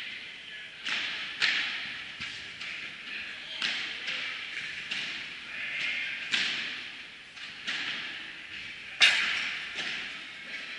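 Padel balls being struck and bouncing, a series of separate sharp pops that ring on in the large hall, the loudest about nine seconds in.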